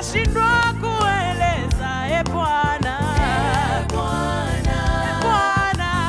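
Gospel worship song: sung voices with a wavering vibrato over a band accompaniment with a steady drum beat.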